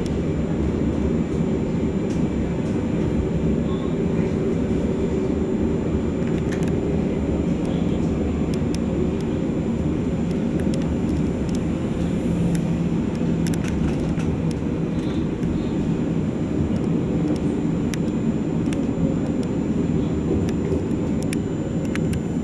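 A light rail tram running along its track, heard from inside the driver's cab. A steady low rumble and hum of wheels and motors continues throughout, with scattered faint clicks.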